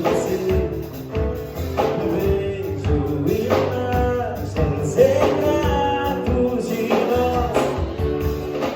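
Live music: a band playing a song, with a sung melody over guitar and a steady beat.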